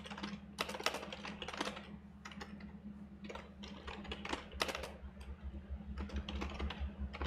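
Typing on a computer keyboard: quick, irregular clusters of key clicks, over a steady low hum.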